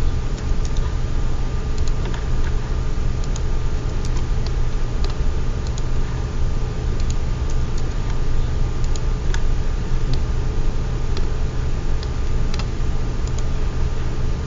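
Scattered clicks of a computer keyboard and mouse, used while modelling in Blender, over a steady low hum.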